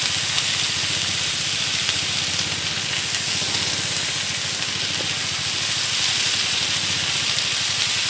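Steady sizzling hiss of food frying on a hot Blackstone flat-top griddle.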